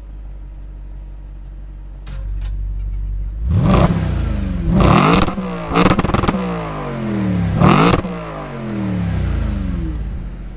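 Audi RS5's V8 idling through its sports exhaust with the valves open, stepping up in loudness about two seconds in. It is then revved sharply four times, the pitch falling back after each, with a smaller blip near the end.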